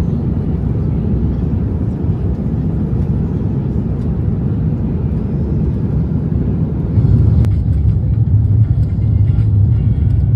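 Steady roar of jet airliner cabin noise in flight: engine and airflow rumble heard from a passenger seat. About 7 s in, there is a click and the rumble becomes deeper and louder.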